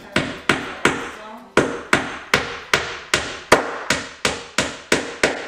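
Hammer nailing the layered wooden boards of a countertop together: about fifteen steady blows, roughly three a second, with a short pause a little over a second in.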